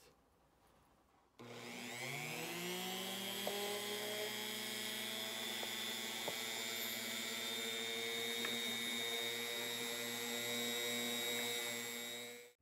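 Handheld rotary tool fitted with a very small bit, started at a low speed about a second and a half in: its whine rises as the motor spins up, then runs steadily while it works the rock matrix around a small clam fossil. It stops suddenly near the end.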